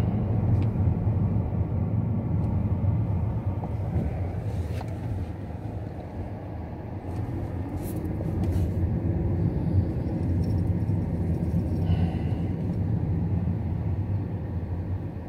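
A car driving slowly, heard from inside: a steady low engine and road rumble.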